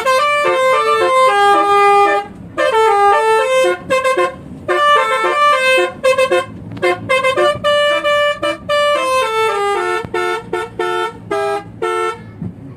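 Indonesian bus 'telolet' horn, a multi-note air horn, playing a quick tune of short and held notes. It stops shortly before the end.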